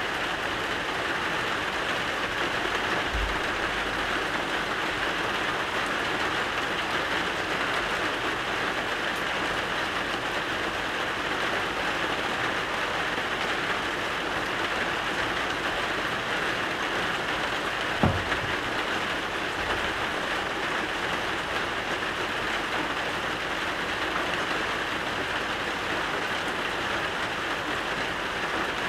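Steady rain falling, an even hiss with no pauses. A single dull thump stands out about two-thirds of the way through.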